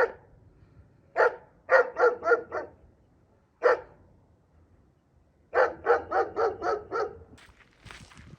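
A dog barking in short, sharp barks: single barks and quick runs of four to seven, with pauses between.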